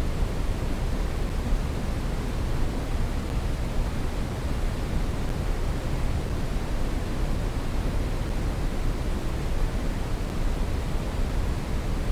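Brown noise: a steady, even rushing hiss weighted toward the bass, unchanging throughout.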